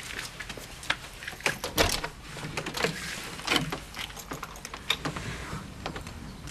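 An old-style front door being unlocked and opened by its knob: a string of short clicks and knocks from the lock, knob and latch, the loudest a little under two seconds in.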